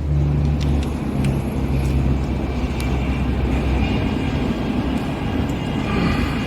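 Steady low mechanical hum and rumble, strongest in the first second or so, with a few faint light clicks.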